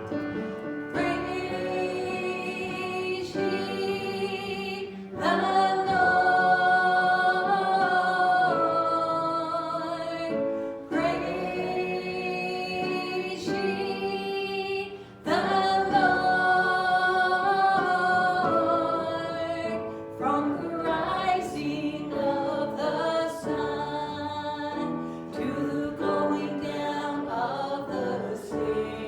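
A group of voices singing a gospel song in long held notes, phrase after phrase.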